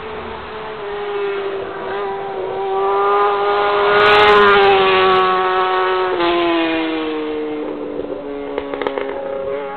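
Honda CBR1000RR's inline four-cylinder engine running loud at high revs. It grows louder to a peak about four seconds in, then fades as its pitch drops and keeps falling.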